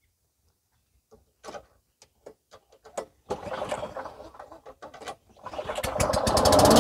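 Tecumseh four-stroke mower engine being pull-started after priming: a few light clicks, then it sputters roughly for a couple of seconds and fades. About five and a half seconds in it catches, firing faster and faster until it runs steadily.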